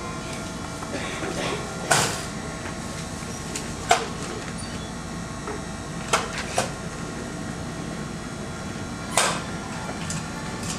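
Steady hum of a fast-food restaurant's counter area, broken by five or six short sharp clacks and knocks, among the loudest about two seconds in and a quick pair of them about six seconds in.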